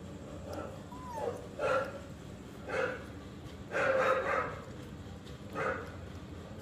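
Kitten mewing: about five short cries a second or so apart, the longest about four seconds in.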